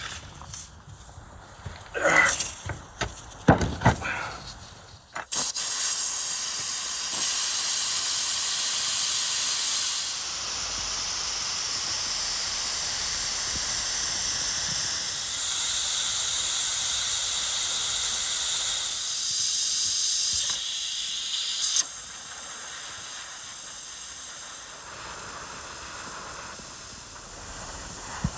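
A few knocks, then about five seconds in steam starts hissing hard from the pressure valve of an Afghan cauldron (a pressure-cooker kazan) as it is vented. The jet stays steady and loud, wavering in strength, and settles to a quieter hiss about three-quarters of the way through as the pressure drops.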